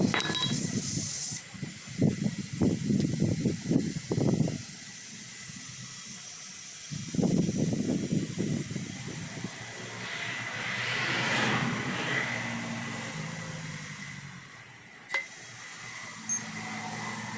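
Compressed air hissing through a workshop air line, swelling to a louder hiss about ten to thirteen seconds in, over a faint steady high whine. Irregular low knocks and rustles in the first few seconds and again around seven seconds in, and a single sharp click near the end.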